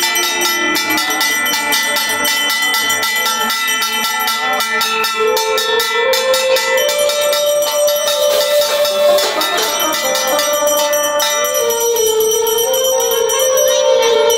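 Puja hand bell rung rapidly and without a break, its strokes ringing on into one another. From about five seconds in, a long held tone that steps up and down in pitch sounds over the bell.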